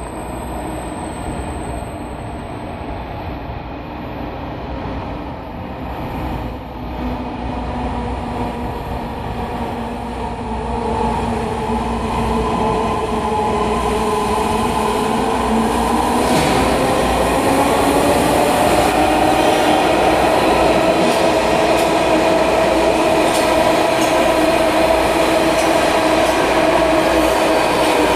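MARTA heavy-rail subway train approaching through the tunnel and pulling into an underground station platform, its rumble growing steadily louder. A pitched whine rises in pitch about halfway through and then holds as the cars run in alongside the platform.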